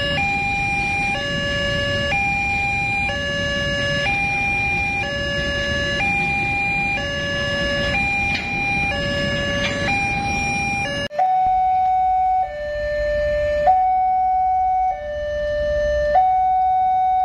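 Railway level-crossing warning alarm: an electronic two-tone signal alternating high and low about once a second, over the rumble of a passing freight train of tank wagons. About eleven seconds in it cuts to another crossing's alarm of the same two-tone kind, slightly lower and without the train noise.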